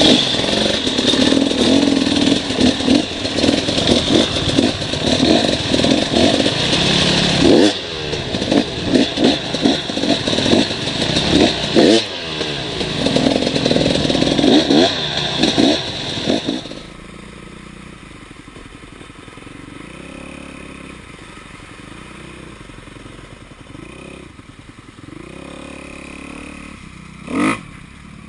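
Off-road vehicle engine revving hard up and down over and over, loud and close, its pitch rising and falling with each throttle blip. A little past halfway it drops away to a faint steady hum, and one short rev rises and falls near the end.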